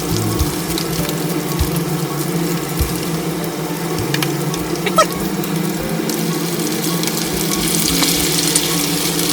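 Karaage deep-frying in hot oil: a steady crackling sizzle that grows a little louder near the end, over a steady low hum, with a brief squeak about five seconds in.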